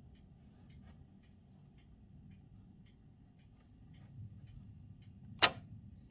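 Faint, uneven ticking, two or three ticks a second, over a low steady rumble, with one sharp loud click about five and a half seconds in.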